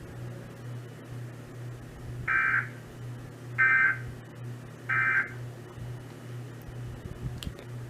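Emergency Alert System end-of-message signal from a radio receiver: three short bursts of two-tone digital data (the 'NNNN' EOM code), spaced about 1.3 seconds apart, marking the end of the Required Monthly Test. A steady low hum runs underneath.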